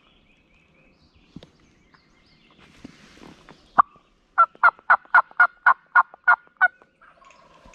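Turkey yelping, most likely a hunter's turkey call. One sharp note, then a run of about ten loud, evenly spaced yelps at roughly four a second, stopping a second or so before the end.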